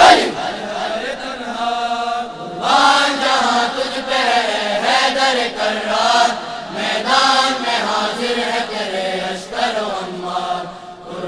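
A tarana, an Urdu devotional anthem, chanted in long melodic vocal phrases with short breaths between them, one about two and a half seconds in.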